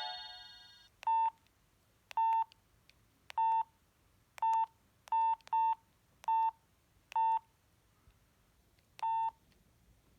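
Samsung SGH-C100 mobile phone sounding a run of short, identical electronic beeps, nine in an uneven rhythm, after the last notes of a polyphonic ringtone die away in the first second.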